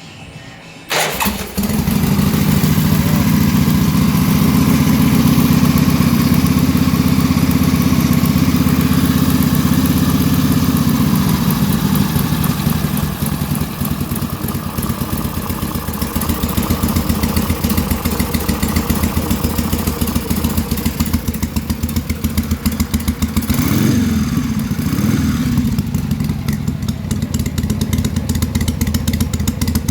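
Harley-Davidson Sportster's air-cooled V-twin started on the electric starter for the first time after a carburetor and fuel-system rebuild: it cranks briefly, catches about a second in and runs at a fast idle, then settles to a lower idle about twelve seconds in. It is revved twice, rising and falling, around twenty-four seconds in.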